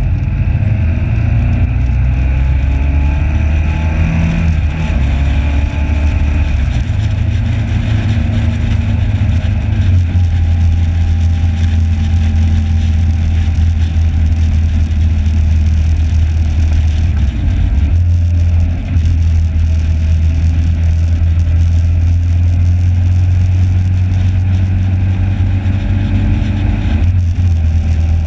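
Motorcycle engine running at speed on a racetrack, with wind rushing over the onboard microphone. The engine note rises and falls a few times and the rumble stays loud and steady.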